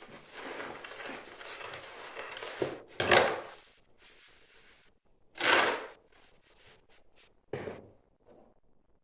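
Ceramic fiber paper being handled and rolled up: a rustle for about three seconds, then three short, louder scrapes spaced two to three seconds apart.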